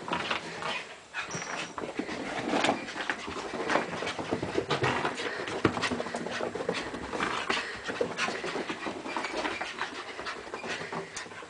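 A corgi panting hard, out of breath from running zoomies, with many short knocks and scuffles through the panting.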